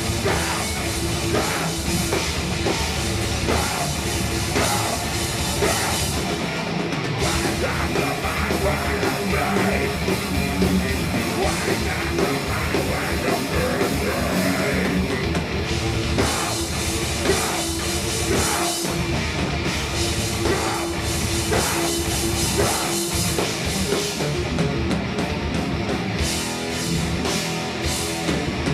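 Thrash metal band playing live: distorted electric guitars and a drum kit, loud and without a break.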